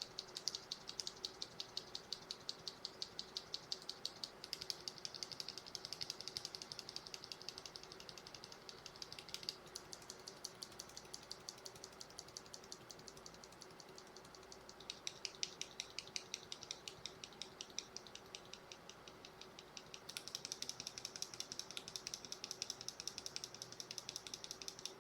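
Bare mechanical keyboard switches in an Akko x Monsgeek switch tester, without keycaps, pressed rapidly over and over at about five presses a second. The switch changes four times, and each change brings a slightly different click: Cherry MX RGB Red, then Akko CS Jelly Black, Gateron Orange, Akko CS Matcha Green and Akko x TTC Demon.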